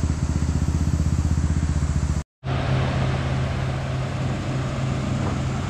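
Engine idling steadily with a fast, even pulse. The sound cuts out for a moment a little over two seconds in and comes back at a higher pitch.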